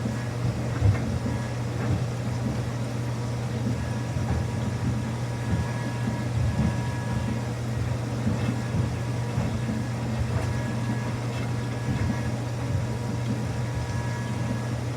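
Samsung front-loading washing machine running a quick wash cycle with a load of towels: a steady low motor hum with irregular soft thumps and knocks as the drum turns.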